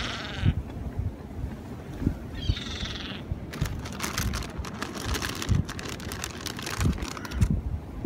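A gull gives one short wavering call about two and a half seconds in, over wind gusting on the microphone. From the middle of the clip there are a few seconds of rapid crackling clicks.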